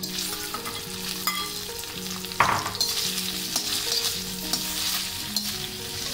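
Raw potato chunks sizzling in hot ghee in a kadhai as they drop in, then frying while a steel slotted spoon stirs them, with light scrapes and clicks on the pan and one louder knock about two and a half seconds in.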